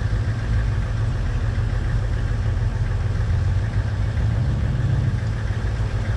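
A truck engine idling: a steady low rumble.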